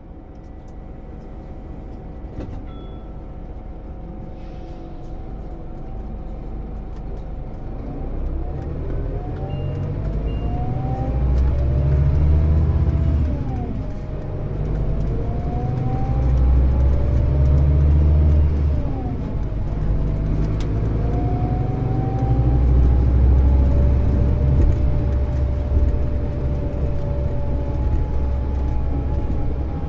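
Scania Citywide Interurban bus heard from inside the passenger cabin: the diesel engine runs steadily, then from about eight seconds in it pulls away and climbs in pitch. The automated manual gearbox changes up twice, about thirteen and nineteen seconds in, each time with a brief drop in engine pitch before it climbs again.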